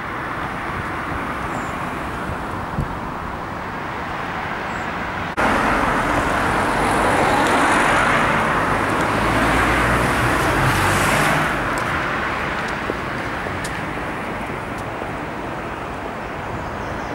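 Steady road traffic noise. After an abrupt cut about five seconds in it is louder for several seconds, with a low rumble as vehicles pass, then eases back to a steady hum.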